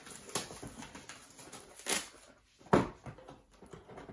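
A cardboard trading-card box being handled and opened on a table: scratchy rubbing with a few sharp knocks, the loudest a little under three seconds in.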